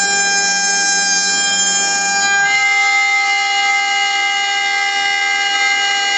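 CNC wood router with a 1.5 kW spindle running under load, a steady high whine of several tones as a 6 mm two-flute cutter cuts along vectors through solid wood, 3 mm deep per pass. About two and a half seconds in, the whine changes pitch as the cut changes.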